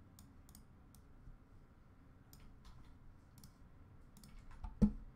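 Scattered clicks of a computer mouse, quicker in a run near the end, followed by one dull thump, the loudest sound.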